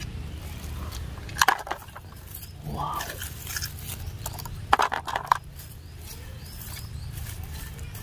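Small plastic toy pieces clicking and knocking together as they are picked up and handled, in two short clusters about a second and a half in and around five seconds in, over a steady low rumble.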